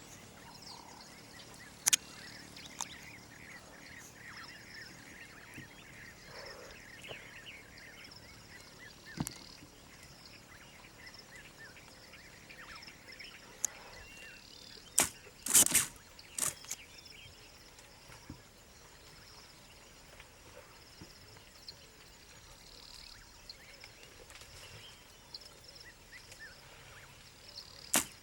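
Outdoor wild ambience: birds chirping over a steady background, broken by a few sharp knocks, with the loudest cluster of them about halfway through.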